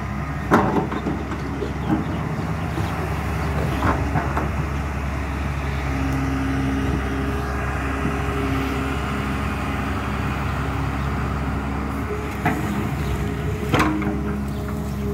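LiuGong crawler excavator's diesel engine running steadily under hydraulic load as the machine digs and swings, its pitch shifting as the load changes. A few sharp knocks from the bucket and boom stand out, the loudest about half a second in and near the end.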